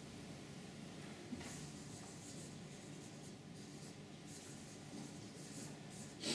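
Marker pen writing on flip chart paper: a series of short, faint scratching strokes, starting about a second and a half in.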